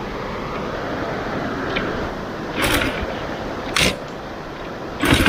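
Underbone motorcycle running at low speed, a steady rumble with two sharp clacks about two and a half and four seconds in, growing louder at the very end.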